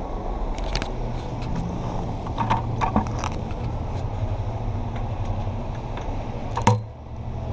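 Steady low rumble of downtown street traffic, broken by several sharp clicks and knocks, the loudest one near the end.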